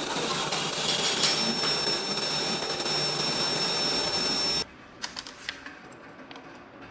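Orbital welding equipment running with a steady hiss and a thin high whine. It cuts off suddenly about two-thirds of the way in, followed by a few light clicks.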